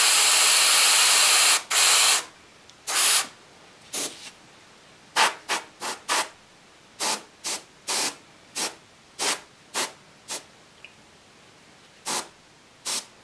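Airbrush spraying paint: a steady hiss for about two seconds, then a string of about fifteen short separate bursts of hiss.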